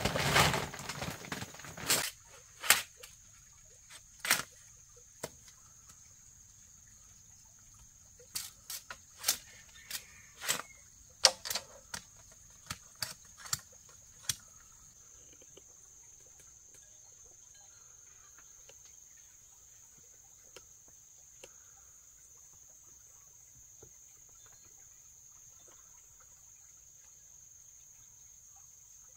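Plastic tarp rustling and crinkling for the first two seconds, then sharp knocks of a long-handled knife chopping bamboo poles, a few spaced blows and then a quick run of strikes that ends about halfway through. After that only a faint, steady high chirring of insects.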